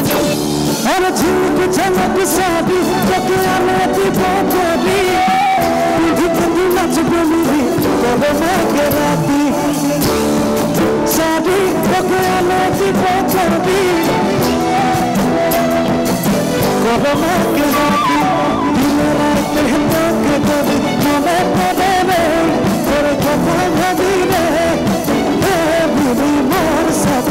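Live band performing an Assamese pop song, with a male singer on lead vocals over drum kit and electric guitar, playing steadily with no breaks.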